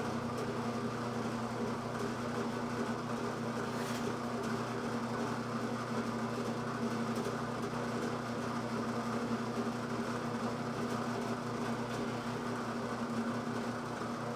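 Electric drill running steadily with a step drill bit, drilling holes in a floor pan: a continuous even motor hum, with a faint click about four seconds in.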